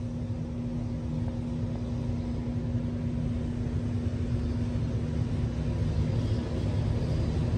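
Steady low rumble of background machinery or room noise, with a steady hum that fades out about two-thirds of the way through.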